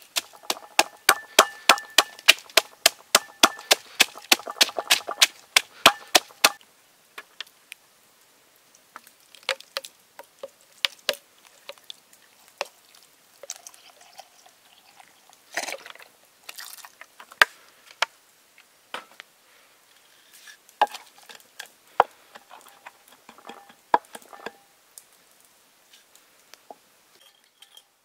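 A knife chopping rapidly on a wooden cutting board, about five strokes a second for some six seconds, then scattered knocks and clinks of kitchen work.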